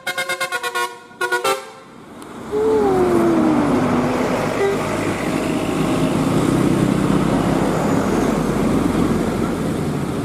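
Bus telolet musical air horn (Basuri type) playing a rapid stutter of chopped notes, then a couple of longer notes, for about the first second and a half. About two and a half seconds in, the loud, steady rumble of the bus passing close by takes over, with a short falling whine.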